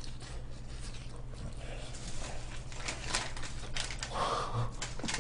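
Quiet eating and food-handling noises: soft rustles and small scattered clicks over a low steady hum, with a brief louder rustle about four seconds in.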